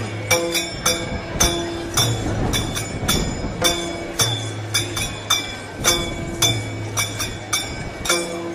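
Music with sharp metallic clinks struck at a steady pace of about two a second, each ringing briefly, over low held tones.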